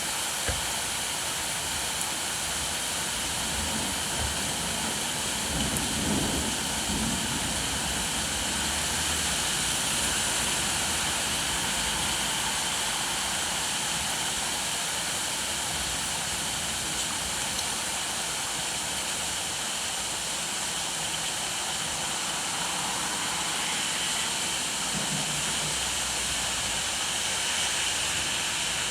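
Steady heavy rain falling, an even hiss, with a brief low rumble about six seconds in and again near the end.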